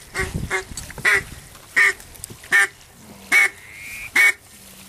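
Duck quacks, single loud quacks about every three-quarters of a second, seven in all.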